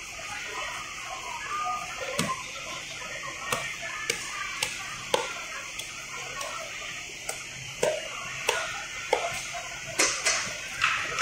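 Large knife cutting tuna on a wooden chopping block: irregular sharp knocks of the blade on the wood, coming closer together near the end, over a steady hiss.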